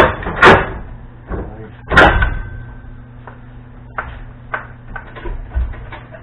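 Metal parts and tools clanking: two loud clanks in the first half-second and another about two seconds in that rings briefly, then a few lighter knocks.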